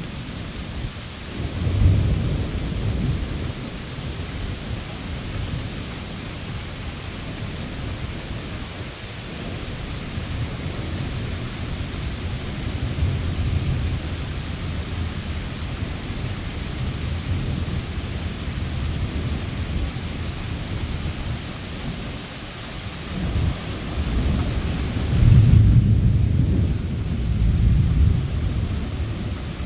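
Thunderstorm: steady rain falling, with thunder rumbling several times, loudest near the end.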